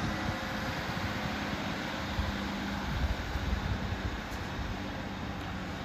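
Class 156 Super Sprinter diesel multiple unit running away along the line: a steady diesel engine drone over wheel-on-rail rumble, gradually fading.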